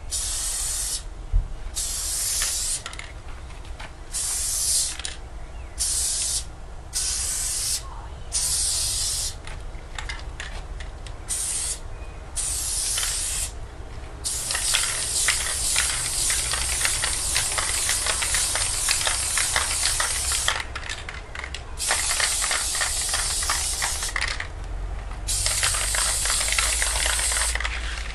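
Aerosol spray-paint can hissing, stop-start: many short bursts for about the first half, then long steady sprays of several seconds each with brief pauses, as a letter is filled in with paint.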